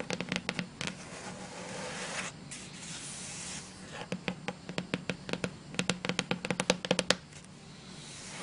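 Long fingernails tapping on the hard cloth cover of an old encyclopedia, in quick flurries of sharp clicks that are densest in the second half. Earlier there is a few seconds of softer rubbing across the cover.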